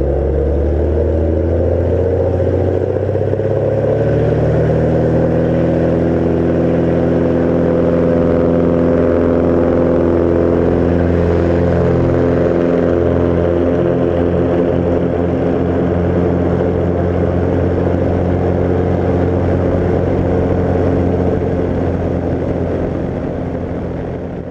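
Bearhawk light aircraft's piston engine and propeller at full takeoff power. The pitch rises slightly over the first few seconds as the plane accelerates, then holds steady through the climb, and the sound fades out near the end.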